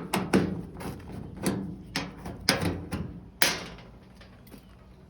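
Top panel of a Samsung front-load dryer being worked loose and lifted off: a run of knocks and clatters, the loudest about three and a half seconds in.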